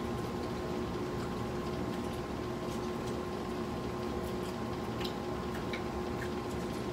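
Steady air-conditioner hum with a few constant tones, and faint scattered crackles and clicks of crispy fried chicken being torn apart by hand and chewed.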